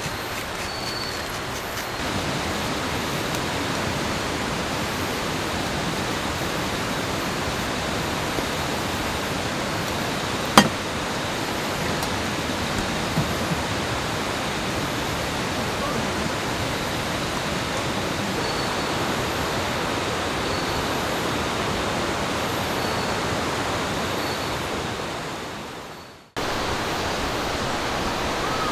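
Steady rushing of water, with one sharp click about ten and a half seconds in. The rushing fades out shortly before the end and comes straight back at the same level.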